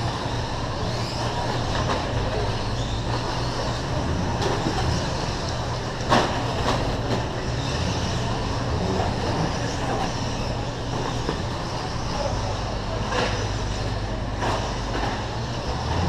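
Electric radio-controlled short course trucks with 17.5-turn brushless motors running on an indoor dirt track, in the steady, echoing noise of a race hall over a low hum. A sharp clack sounds about six seconds in, with fainter ones later.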